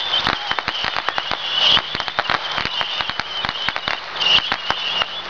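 A dense, irregular crackle of firecrackers going off, many sharp pops a second, with short louder flurries.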